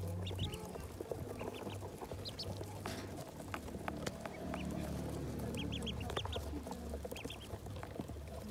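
A crowd of ducklings peeping: many short, high cheeps coming in quick clusters, over a low steady hum.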